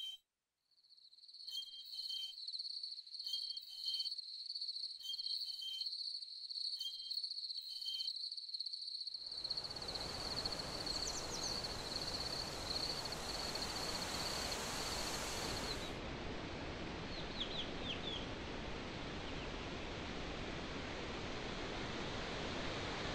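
Countryside ambience: a steady high cricket trill with short double chirps about every second and a half. About nine seconds in a steady rushing noise rises and covers it, with a few quick falling bird chirps; the cricket trill stops about sixteen seconds in.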